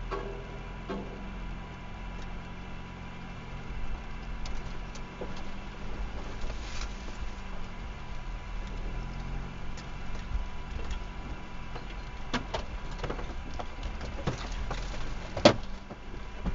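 Off-road vehicle driving slowly along a rough track, its engine a steady low hum, with scattered knocks and clatters as it bumps along; one sharp knock near the end is the loudest sound.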